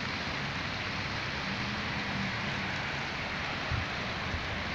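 Steady rushing of the Arrudas River's rain-fed water flowing down its concrete channel, mixed with the low hum of traffic. Two small knocks near the end.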